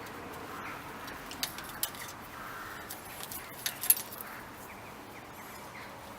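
Light metallic clinks and ticks, about half a dozen scattered over a few seconds with the sharpest near the middle, from hand work on an old bicycle's frame and fittings.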